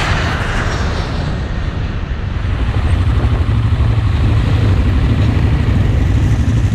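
Quad bike engines running as the ATVs ride along a street, with a dense low rumble that gets louder about two and a half seconds in.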